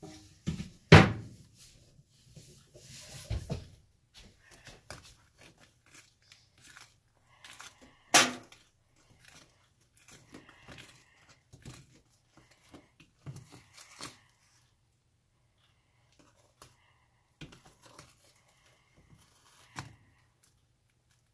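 Wet, sticky homemade slime being stirred in a plastic bowl with a utensil: scattered soft scrapes and clicks, with two sharp loud knocks, about a second in and about eight seconds in.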